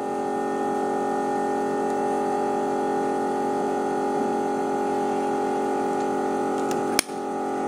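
A steady hum of several held tones, then about seven seconds in a single sharp crack as the Bocap FX Crown Mahameru PCP air rifle fires a pellet.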